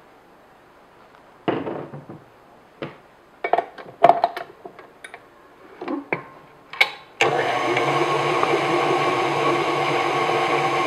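A few knocks and scrapes, then about seven seconds in a KitchenAid tilt-head stand mixer starts and runs steadily, beating cream cheese in its bowl.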